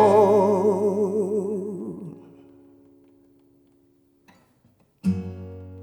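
Acoustic guitar and voice ending a song: a sung note held with vibrato over a ringing guitar chord fades out over about two seconds, then after a near-silent pause a single strummed acoustic guitar chord is struck about five seconds in and left to ring as the final chord.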